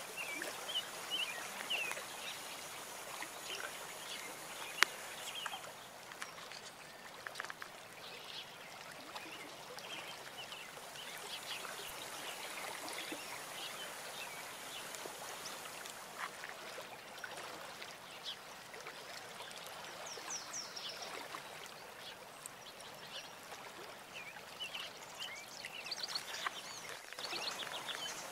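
Water trickling and splashing in a small cement garden pond, with short bird chirps now and then and a sharp click about five seconds in.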